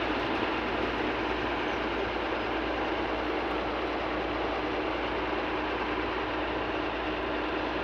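Steady heavy engine noise, an even rumble and hiss with no separate knocks, a faint steady hum coming in about halfway through.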